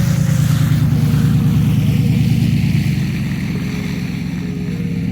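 Background music: a slow melody of held notes over a deep, steady low rumble.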